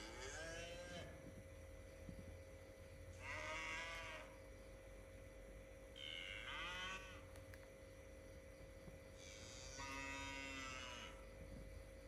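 Cattle mooing: four separate calls, roughly three seconds apart, the last one the longest.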